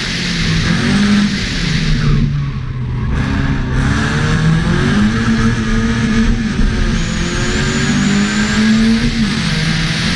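An Opel Corsa B's 1.4-litre 16-valve four-cylinder engine driven hard under racing load, its note rising and falling with the throttle. It lifts about two seconds in, then climbs through the revs again until it drops near the end, over heavy wind and road noise.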